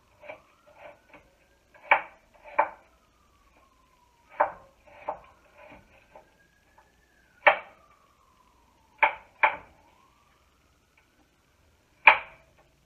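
Kitchen knife chopping peeled apple on a wooden cutting board: about eight separate chops at uneven intervals.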